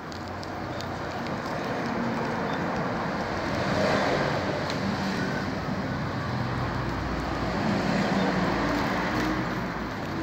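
Steady outdoor rumble of distant road traffic, with no sharp events.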